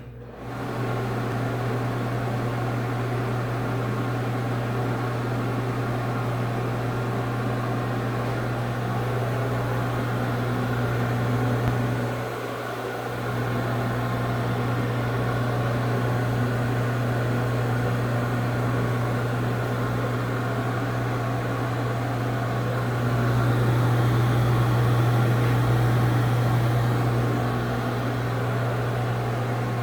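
Cook commercial exhaust fan switching on and reaching full speed within about a second: a fast startup. It then runs with a steady low motor hum and the rush of moving air. The sound dips briefly about twelve seconds in and is louder for a few seconds later on.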